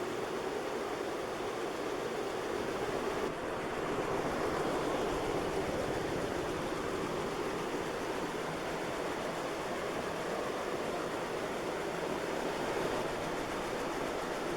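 SMC Laguna 132 cm ceiling fan running on high speed, around 240 RPM: a steady rush of air from its four cane blades.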